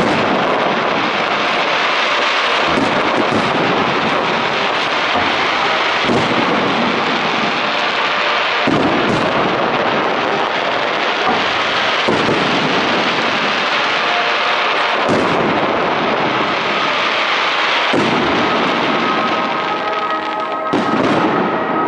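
Fireworks display: aerial shells bursting with sharp bangs about every three seconds, over a continuous dense rush of noise between the bangs.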